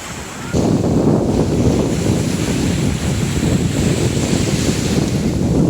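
Wind buffeting the microphone: a gust hits about half a second in and then continues as a steady, loud low rumble.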